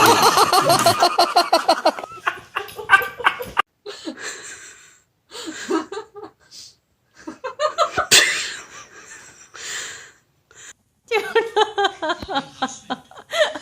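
A person laughing hard in a rapid run of 'ha' pulses over the first two seconds, then scattered softer laughter and voice sounds broken by short silences.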